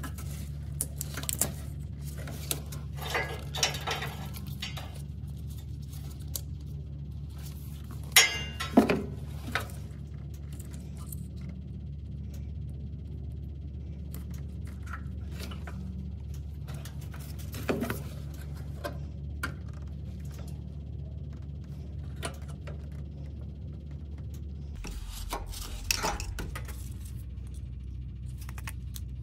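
Clicks and rattles of a plastic electrical connector and multimeter test leads being handled, over a steady low hum. The loudest cluster of clicks comes about eight seconds in, with scattered smaller knocks later.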